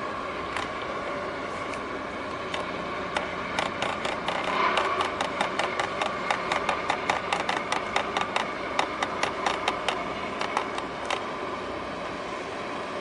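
A steady mechanical drone with a constant hum, overlaid through the middle by a rapid, irregular run of sharp clicks, several a second, which are the loudest sounds.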